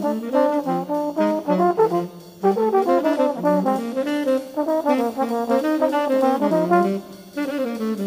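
Jazz trombone and a second horn playing a fast bebop melody together in two independent lines, with no bass or drums under them.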